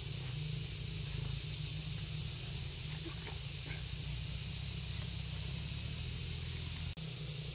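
Steady outdoor ambience: an even high hiss over a low rumble. It cuts out for an instant near the end.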